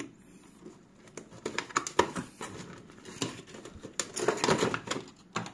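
Cardboard toy box being opened by hand: the end flap is pulled open, with irregular scraping, rustling and clicks from the cardboard, loudest about two seconds in and again near four to five seconds.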